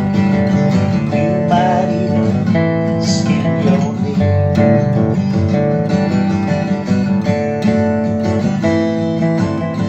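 Music: an instrumental passage of a song led by strummed acoustic guitar, with no singing.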